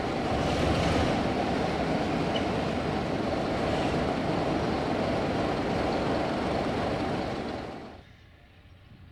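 Class 33 diesel locomotive running with its train of coaches, a steady rushing noise mixed with wind on the microphone. The sound falls away sharply about eight seconds in.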